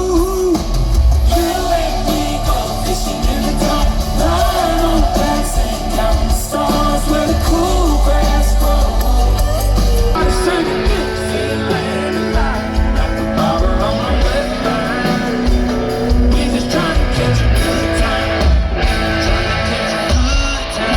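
Live band music: a song with singing and guitar over a heavy bass line.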